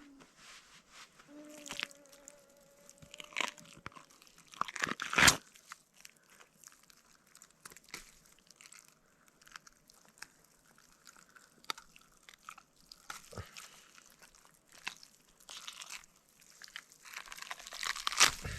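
Pike being cleaned with a knife: irregular crunching and scraping, with a sharp knock about five seconds in and a busier stretch of scraping near the end.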